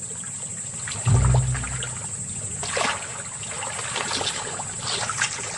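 Water splashing and trickling in small, irregular splashes, with a short low hum about a second in.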